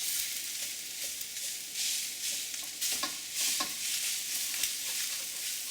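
Rice frying in mustard oil in a wok, a steady sizzle that swells and fades as it is stirred, with a stirring utensil scraping and knocking against the wok a few times while the lumps of rice are broken up.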